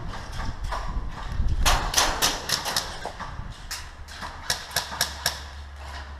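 Footsteps of an airsoft player on hard ground, with gear knocking: a run of irregular sharp clicks, several a second, over a low rumble, a few louder knocks near the end.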